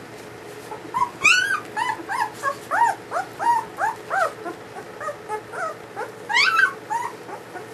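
German Shepherd puppies whimpering and crying in a rapid series of short, high rising-and-falling cries. Two shriller squeals come about a second in and again near the end.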